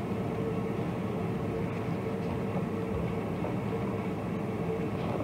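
A steady mechanical hum with a constant mid-pitched tone, running evenly without change.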